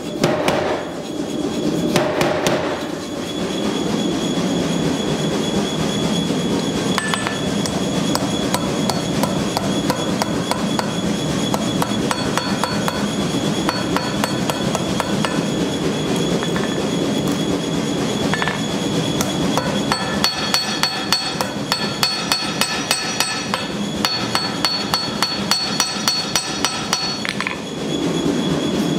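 Hammer blows on a red-hot steel knife blank on an anvil: a quick, even run of strikes at about three or four a second, with the anvil ringing. A gas forge roars steadily underneath. The hammering stops shortly before the end.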